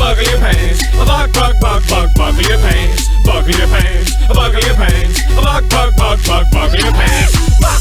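Upbeat hip-hop dance track with heavy bass and a steady driving beat, with wavering melodic lines over it.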